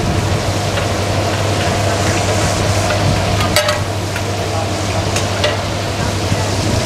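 Vegetables stir-frying in a large metal wok over a high flame, a steady sizzle. A metal ladle scrapes and clinks against the wok, with sharp clinks about three and a half and five seconds in.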